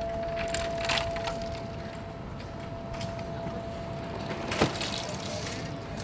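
Street ambience at a drawbridge as its deck lifts: a steady hum with a fainter second tone under it, some clicks about a second in, and one sharp knock about four and a half seconds in.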